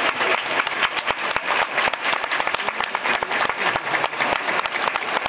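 A large crowd applauding, with many hands clapping densely and steadily.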